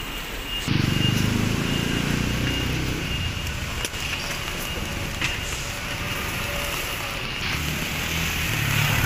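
Motor scooter and motorcycle engines on a wet street: one engine rises suddenly to a loud pass about a second in and fades over the next two seconds. Another motorcycle approaches and grows louder near the end, over steady street hiss.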